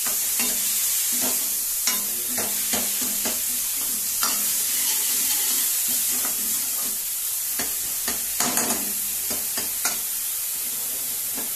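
Onion and green chilli masala sizzling in oil in a metal kadhai while a steel ladle stirs and scrapes it, with irregular clinks of the ladle against the pan. The masala has fried to the stage where it releases its oil.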